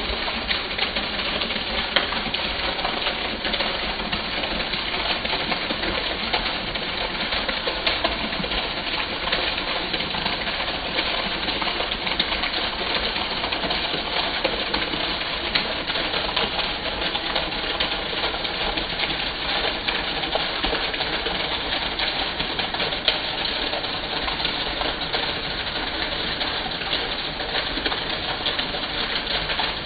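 Heavy rain with rainwater pouring off a roof edge in a thick stream, a steady unbroken rush and splash.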